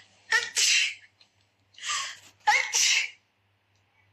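A woman sneezing twice, each a wet, allergic sneeze in two quick parts, about a second apart at the start and again about two and a half seconds in. A drawn-in breath leads up to the second sneeze.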